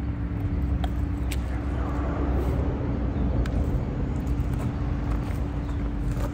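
Steady low outdoor rumble with a constant hum and a few faint clicks.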